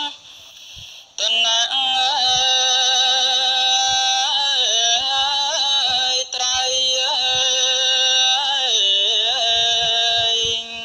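A single voice singing a slow, melismatic Buddhist devotional chant, holding long notes that waver and slide between pitches over a steady lower drone. It drops away briefly at the start and comes back in about a second in.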